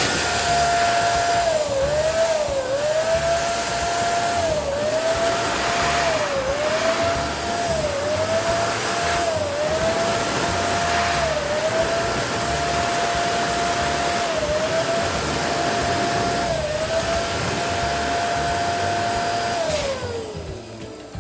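Electric balloon pump running steadily with a whirring hum, its pitch dipping briefly every second or two. It is switched off about twenty seconds in and winds down with a falling pitch.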